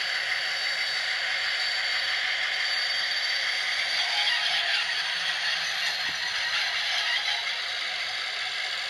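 Piko HO scale BR219 model locomotive running, a steady mechanical hiss and clatter with a thin high whine over it.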